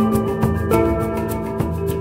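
Background music: held melodic notes over a light, steady percussion beat.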